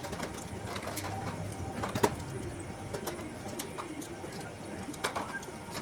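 Pigeons cooing, with scattered light clicks and a sharp tap about two seconds in.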